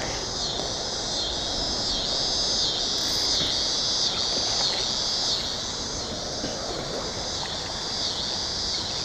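A chorus of insects drones high and steady, pulsing about twice a second, over a steady hiss of outdoor background noise.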